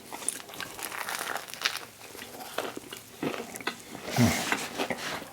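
Close-up eating sounds: biting and chewing a toasted English-muffin breakfast sandwich, with many small, sharp mouth clicks and crunches.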